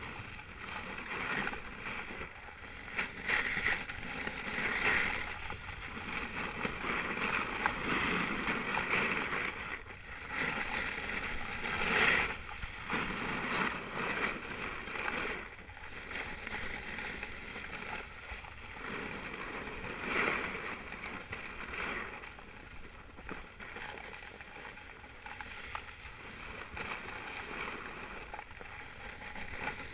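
Wind rushing over the microphone of a moving action camera, mixed with the hiss of edges sliding over packed snow during a downhill run. The noise swells and eases every few seconds.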